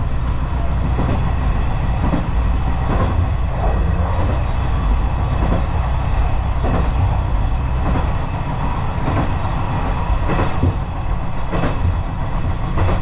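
Single-car KiHa 40 diesel railcar running along single track, heard from inside the car: a steady heavy diesel rumble, with irregular sharp clicks of the wheels passing over rail joints every second or so.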